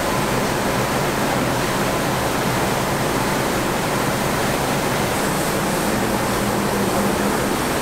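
Steady, even rushing noise of factory machinery running, with a faint low hum under it.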